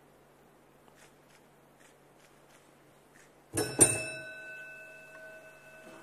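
A metal bell struck twice in quick succession, then ringing on with a clear tone that slowly fades.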